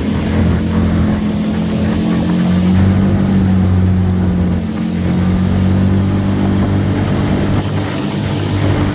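Boat's outboard motor running steadily, with small changes in engine speed, shortly after a fresh gear-oil change in its lower unit.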